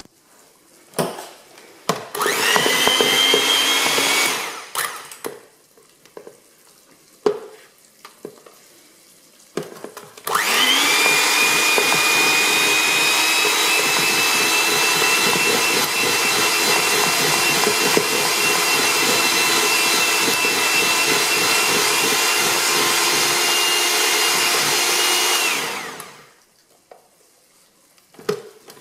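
Electric hand mixer beating egg whites in a plastic bowl. The motor spins up with a rising whine and runs for about two seconds, then stops. After a few clicks and knocks it starts again and runs at a steady pitch for about fifteen seconds before cutting off near the end.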